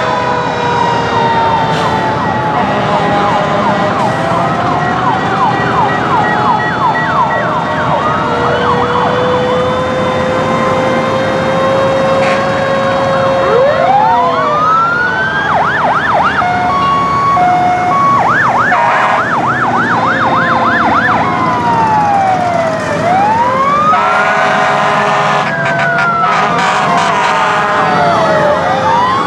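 Many fire-truck and police sirens sounding at once as a column of fire apparatus drives past: overlapping slow wails, fast yelps from about halfway on, and a siren winding up in a long rising sweep, over the rumble of engines and tyres. A horn sounds briefly about five seconds before the end.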